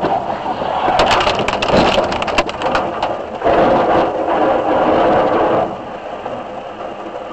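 A head-on vehicle collision: a crunch of impact, then a rapid clatter of cracks and knocks as debris flies, for about a second and a half. After that comes a steady rushing noise for about two seconds.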